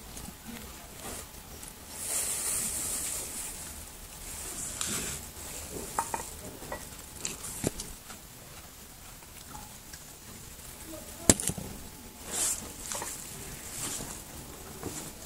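A kitten eating close to the microphone: wet chewing and licking noises with scattered small clicks and short hissy rustles, and one sharp knock about eleven seconds in.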